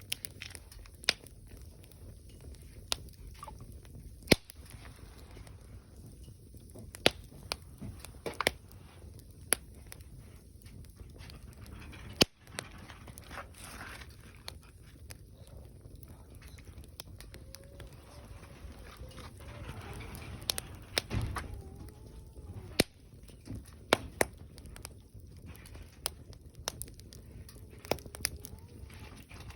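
Wood fire (bonfire) burning: a low steady rumble under sharp, irregular crackles and pops, with about fifteen louder snaps spread through.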